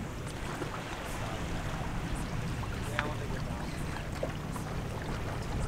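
Wind rumbling on the microphone over the wash of sea water against the jetty rocks, steady throughout.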